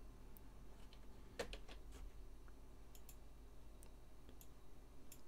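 Faint, scattered clicks from computer input at a desk, about ten short clicks spread unevenly, the loudest about a second and a half in, over a low steady hum.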